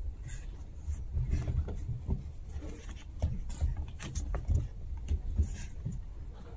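Two Chihuahua puppies scuffling on carpet as they play with their toys: irregular soft thumps, rubbing and scratchy pawing, with no steady rhythm.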